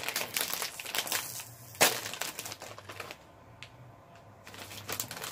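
Plastic snack bag crinkling as it is handled and pulled open, with one sharp crack about two seconds in, then a quieter stretch before more rustling near the end.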